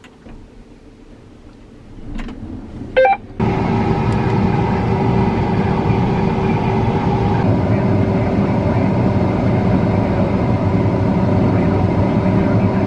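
A short beep about three seconds in, then a combine harvester's engine and machinery cut in abruptly and run loud and steady.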